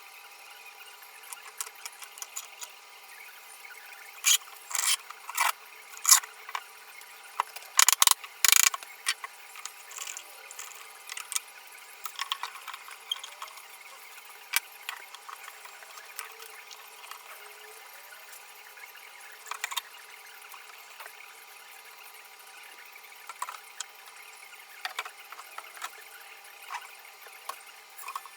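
Irregular sharp clicks and knocks of tools and wood being handled at a workbench, loudest in a cluster about four to nine seconds in, over a faint steady hum.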